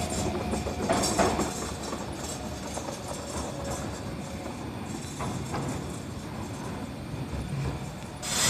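A tram moving off along the track, its wheels clacking over the rails a few times, its running sound fading as it goes into the distance.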